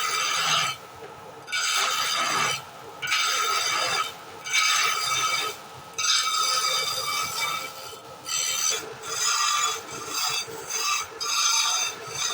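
A turning tool scraping and cutting into spinning wood on a lathe in repeated strokes, each about a second long with short pauses between, over a faint steady motor hum.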